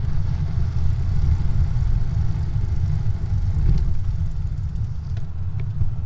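Steady low rumble of a moving vehicle: engine and road or wind noise heard from the vehicle carrying the drive recorder as it travels a narrow street.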